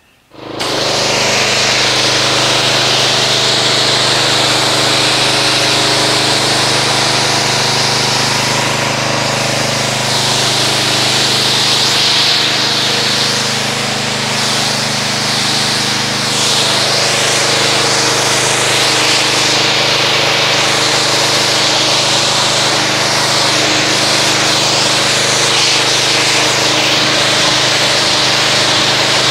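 Pressure washer running, its motor and pump humming steadily under the loud hiss of the spray gun's water jet, rinsing foam off a car. It starts up about half a second in.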